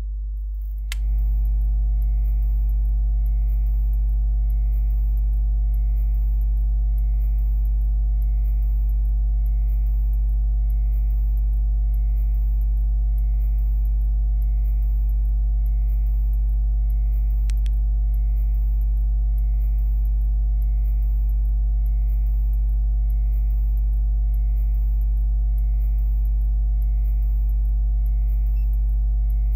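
Loud, steady low electrical hum like mains hum, with a faint pulsing in its upper tones. It steps up in level with a click about a second in, and a single faint tick comes about halfway through.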